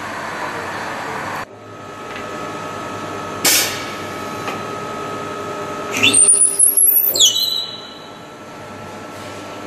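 Brusa FIL 30 wood threading machine running with a steady whine. About three and a half seconds in there is a sharp clunk. From about six seconds in there is a loud, high screech for a second and a half, rising and then falling, as the cutter head threads a wooden dowel.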